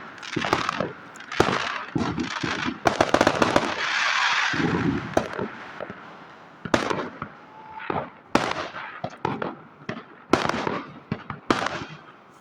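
Fireworks going off: repeated sharp bangs and firecracker reports, with a dense spell of crackling about three to five seconds in.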